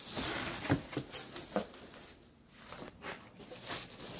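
Hands rummaging through packaging in a cardboard shipping box: plastic wrap and cardboard rustling, with a few light knocks as parts are moved. It goes quieter for a moment past the middle, then the rustling picks up again.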